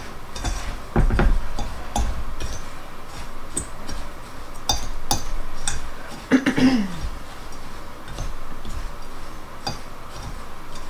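A fork stirring dry graham cracker crumbs and flour in a glass bowl, making many light clicks and scrapes against the glass. A short falling sound comes a little past halfway.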